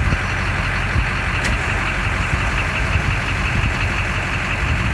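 A vehicle engine idling steadily, a low even rumble with no change in pitch.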